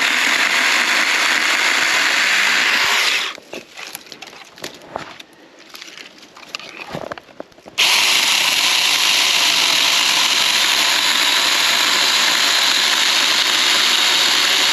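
Saker mini cordless electric chainsaw running and cutting wood. It goes quiet for about four seconds in the middle, with a few light clicks, then starts again abruptly.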